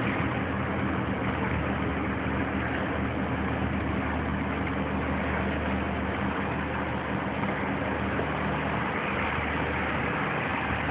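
Cigarette Cafe Racer powerboat's engine idling steadily, under a constant hiss.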